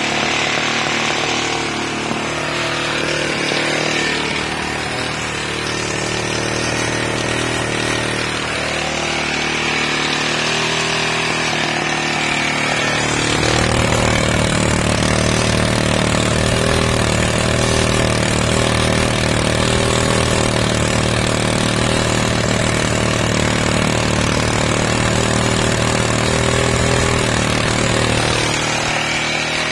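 Mountfield WB45 140cc OHV single-cylinder lawnmower engine running steadily on a modified GEET set-up. It grows louder and deeper from about halfway through, then eases back just before the end.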